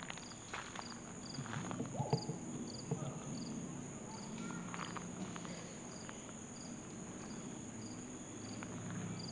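Summer insects calling in the trees: a steady high-pitched drone with a short chirp repeating about twice a second. A few soft knocks or scuffs come through, loudest about two seconds in.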